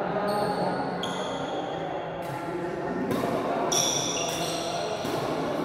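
Badminton doubles rally: several sharp racket strikes on the shuttlecock, roughly one a second from about two seconds in, with a few short high squeaks of shoes on the court floor. Voices murmur underneath, echoing in the large hall.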